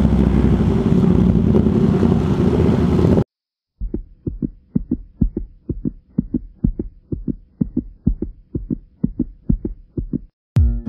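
Motorcycle riding noise, wind on the microphone over the engine, cuts off abruptly about three seconds in. After a brief silence comes a fast, steady thumping like a heartbeat sound effect, about four beats a second, and music starts at the very end.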